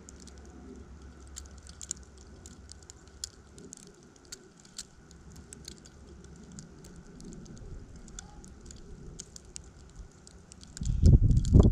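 Falling snow ticking lightly and irregularly against the camera and its surroundings, many scattered small clicks. Near the end a gust of wind hits the microphone with a loud, low rumble.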